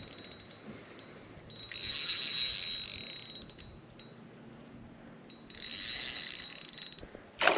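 Spinning reel whirring with rapid fine clicks in two spells of about a second and a half each, while a large trout is played in on the line.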